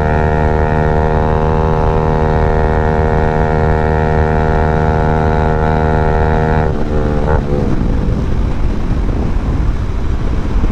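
Bajaj Dominar 250's single-cylinder engine run without its exhaust muffler, a motorcycle riding past at steady revs. The note holds one pitch, then drops sharply about seven seconds in as the bike goes by, leaving a rough hiss.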